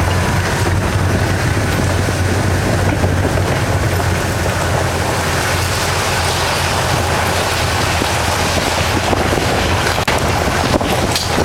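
Wind rushing over the microphone of a rider in a moving open vehicle, over a steady low drone of engine and road noise.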